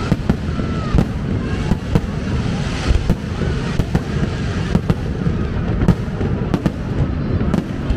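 Aerial fireworks bursting over a steady low rumble, with sharp bangs every second or so.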